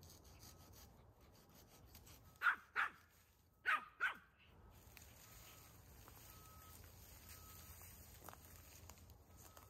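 Pomeranian barking four times, in two quick pairs of short, sharp barks.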